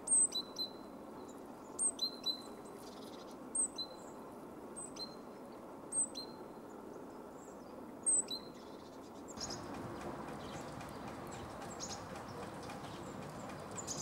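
Great tit calling: short, sharp, high notes in groups of two or three, repeated about every two seconds. About nine seconds in the calling stops; after that there is only steady background noise with faint, scattered high chirps.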